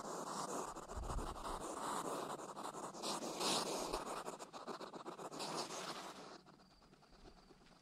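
Dry scratching and rustling on gravel, louder in short patches, that cuts off abruptly near the end.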